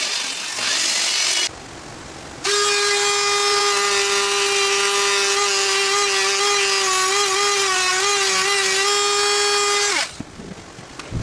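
A scraping, sawing noise for the first second and a half, then after a short pause a Dremel rotary tool starts and runs with a steady high whine for about seven and a half seconds. Its pitch wavers slightly near the end, and it cuts off suddenly.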